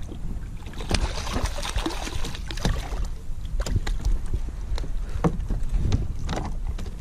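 A hooked redfish splashing at the surface beside a plastic kayak. It is then swung aboard, and from about the middle on there are scattered knocks and thumps as it flaps against the hull.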